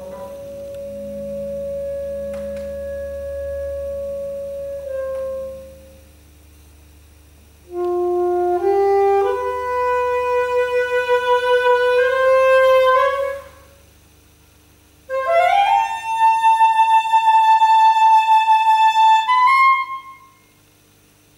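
Solo saxophone in the closing phrases of a contemporary concert piece. It holds a long note that ends about five seconds in. After a pause it climbs upward in steps to a high note, and after another pause it sweeps quickly up to a high held note that pulses rapidly before cutting off near the end.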